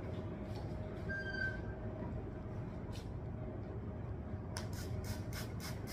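Steady low room hum, with a short high beep about a second in. From about four and a half seconds in, a rapid run of short scratchy strokes, about four a second.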